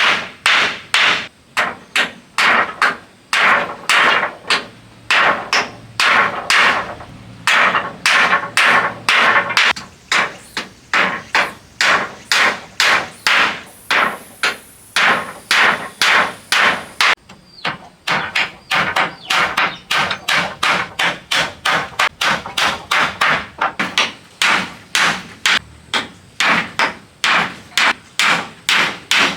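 A hammer striking repeatedly and steadily, about two blows a second, each blow with a short ringing note, as in hammering nails into wood during shelter building.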